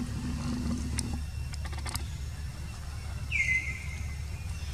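A single high, whistle-like animal call about three seconds in, dipping briefly in pitch and then holding for about a second, over a steady low rumble and a few light clicks.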